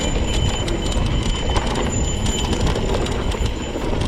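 Mountain bike rolling along a rough dirt trail: a steady rumble of tyres and wind on the mic, with rapid irregular rattling clicks from the bike.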